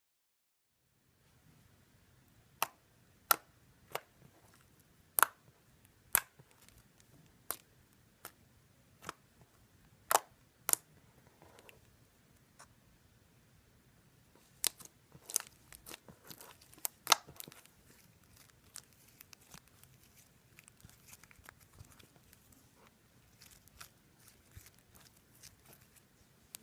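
Irregular sharp clicks and snaps, a dozen or so loud ones spaced out, with a busier run of smaller clicks in the middle.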